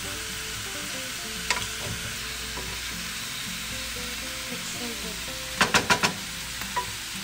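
Chicken pieces with onion and garlic sizzling steadily in a nonstick frying pan as a wooden spoon stirs them. The spoon knocks against the pan once about a second and a half in, then four or five times in quick succession near the end.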